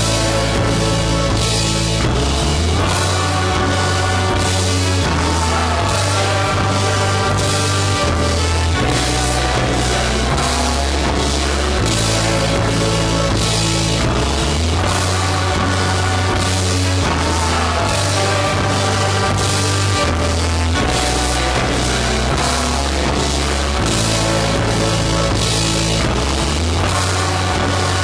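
Loud rock music from a full band: a drum kit keeps a steady driving beat under bass and electric guitars.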